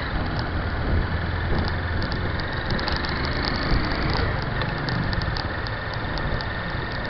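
Engine and road noise of a moving vehicle heard from on board: a steady low hum under an even rush of noise, with many faint, light ticks.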